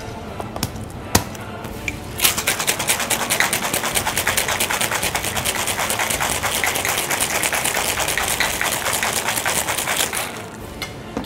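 Ice rattling inside a metal cocktail shaker shaken hard: a few clinks as the shaker is closed, then a fast, even rattle that starts about two seconds in and stops shortly before the end.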